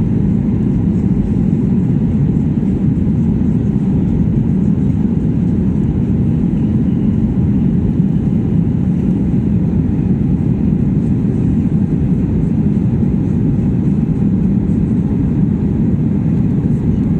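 Airliner taking off: a loud, steady, low roar of engines and rushing air, unchanging throughout.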